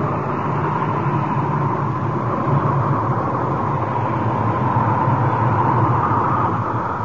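Cartoon wind sound effect: a steady rushing howl of wind with a low rumble beneath it.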